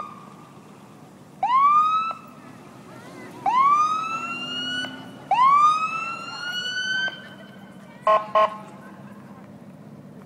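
Emergency vehicle siren giving repeated rising whoops, each sweeping up and then holding its pitch. It is followed by two short horn blasts in quick succession about eight seconds in.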